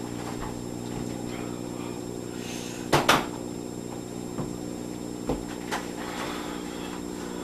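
Two sharp knocks in quick succession about three seconds in, with a few fainter clicks later, over a steady low electrical hum.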